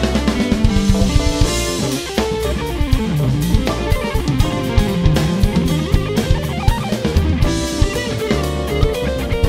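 Drum kit played along to a band track: steady strokes on snare and cymbals under a prominent guitar line, with bass and keys. The cymbal wash swells about a second in and again near the end.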